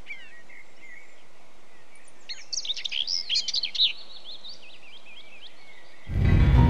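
Small birds chirping and twittering in quick, high, rising and falling calls over a faint steady hiss, busiest between about two and four seconds in. Music cuts in abruptly near the end.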